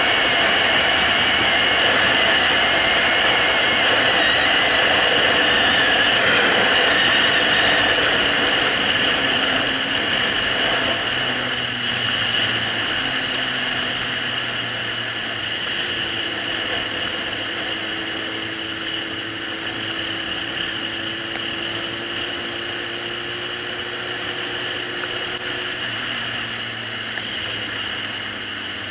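Suzuki GSR750 inline-four motorcycle engine running under way, with wind rushing over the microphone. The loudness eases after about eight seconds as the bike slows, and the engine settles to a steadier, lower note.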